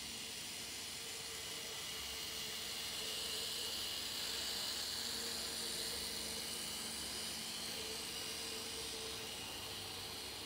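Z gauge model train running on the layout: a faint steady hum from the locomotive's small motor over a hiss of wheels on track, getting a little louder midway as it passes closest.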